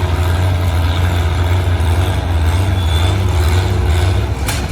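Antique Oliver 77 farm tractor engine running steadily under load while pulling a weight sled, with a sharp clack near the end.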